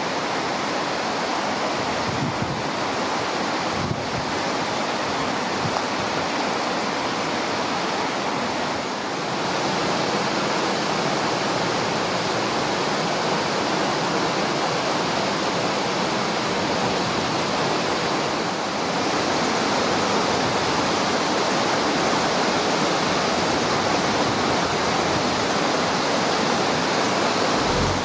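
Water of the River Twiss rushing over rocks and small cascades below Thornton Force waterfall: a steady, even rush that grows a little louder twice.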